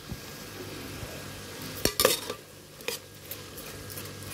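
Chopped vegetables sizzling in butter in a pressure cooker pot, with a steel spoon stirring and scraping against the pot a few times, the sharpest scrape about two seconds in.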